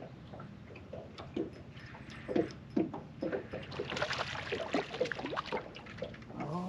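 Small waves lapping and slapping irregularly against the hull of a small fishing boat.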